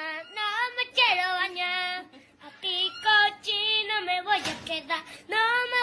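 A high-pitched voice wailing in wavering, sung-like notes, each about a second long with short breaks between them.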